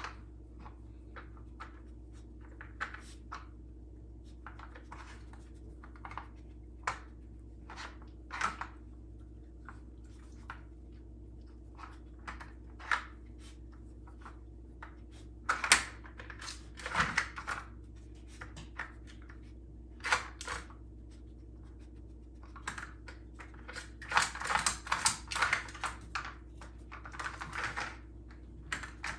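Puppy working a plastic Dog Brick puzzle feeder: irregular clicks and clacks of its plastic sliders and lids being nosed and knocked about, with kibble being crunched. The clatter grows busier about halfway through and again near the end.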